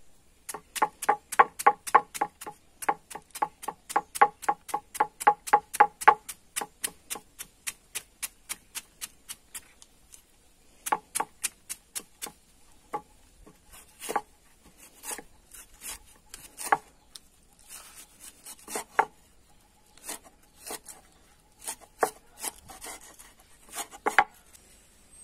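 Cleaver chopping a banana blossom on a wooden cutting board: a fast, even run of about five knocks a second for the first ten seconds, then slower, uneven chops.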